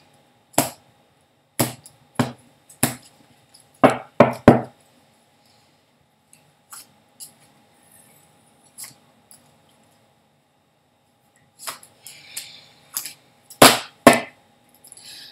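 A deck of tarot cards being cut and knocked against a tabletop: a run of about seven sharp taps in the first five seconds, a few faint clicks after, then a brief rustle of cards and two loud knocks near the end.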